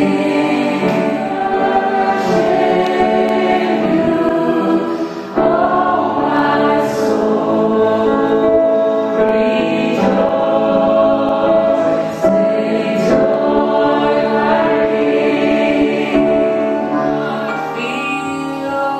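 A woman singing a slow song into a microphone, amplified through loudspeakers, with long held notes.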